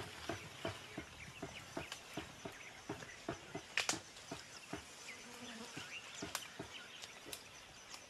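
Mountain gorillas moving among leafy vegetation: irregular crackling, rustling and snapping of stems and leaves, with a sharper snap near the middle. Scattered short, high chirps sound over it.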